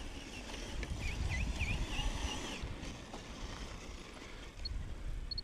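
Wind rumbling on the microphone, with a short run of quick high chirps, each dipping and rising in pitch, about a second in.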